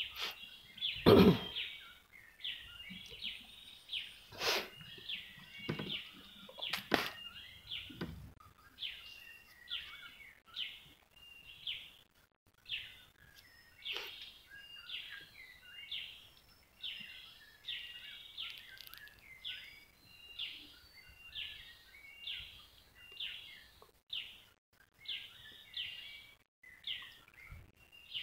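A bird calling over and over in short chirps, roughly one to two a second, steady throughout. A few knocks come in the first few seconds, the loudest about a second in.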